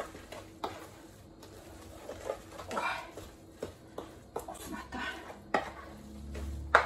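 Wooden spatula stirring and scraping a thick, oily garlic-scape paste in a metal bowl, with irregular knocks of the spatula against the bowl.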